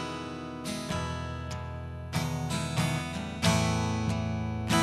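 Acoustic guitar strumming chords, each chord left to ring, between sung lines of a slow ballad.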